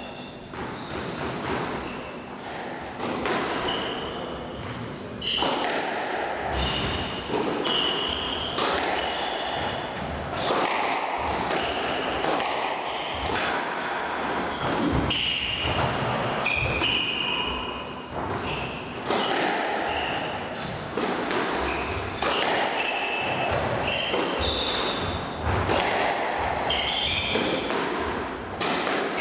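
A squash rally: the ball struck by rackets and smacking off the court walls in repeated sharp thuds, with short high squeaks from the players' shoes on the wooden court floor, all echoing in the enclosed court.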